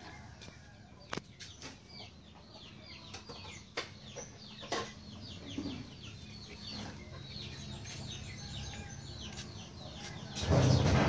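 Birds chirping in many short, repeated falling chirps, with a few sharp clicks in the first half. A louder rush of noise starts shortly before the end.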